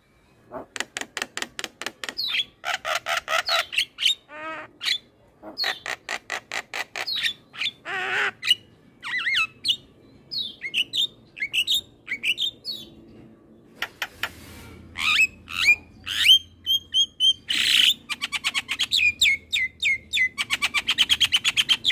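Javan myna singing a varied, chattering song: fast rattling runs of clicks, short falling whistles and a few harsh squawks, with brief pauses between phrases.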